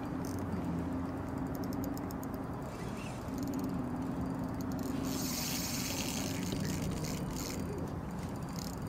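Shimano Stella 2500 spinning reel working against a hooked fish on a bent rod: rapid, fine ticking from the reel, with a few seconds of denser high buzzing in the middle, over a steady low hum.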